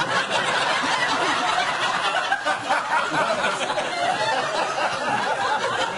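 Audience of many people laughing together, without a break.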